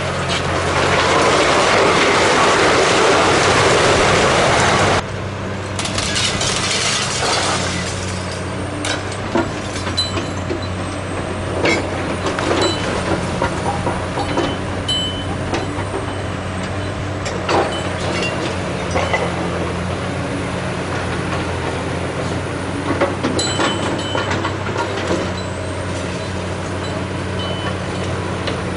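Heavy Caterpillar 345C hydraulic excavator's diesel engine running steadily at work on demolition, with repeated knocks and clatters of brick and concrete rubble being broken and dropped. For about the first five seconds a loud rushing noise covers it, then cuts off suddenly.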